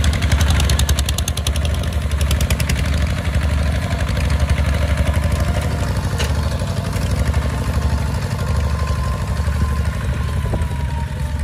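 Kubota RT140 walking tractor's single-cylinder diesel engine running steadily under load as it pulls a plow through the soil, with a fast, even beat.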